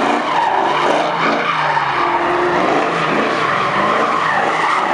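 Dodge Challenger drifting: tyres squealing steadily on asphalt over the engine, which revs up and down as the car is held in the slide.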